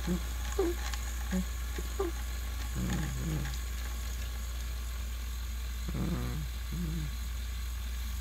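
Battery-powered toy train engines running while coupled and pushing against each other: a steady low motor hum with a faint hiss, and a few short low murmur-like sounds, the longest about three and six seconds in.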